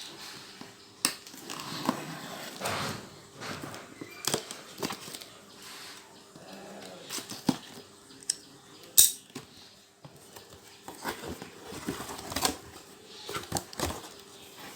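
A ceiling fan's cardboard carton being opened and its packing handled: scattered knocks, clicks and rustles, the sharpest click about nine seconds in.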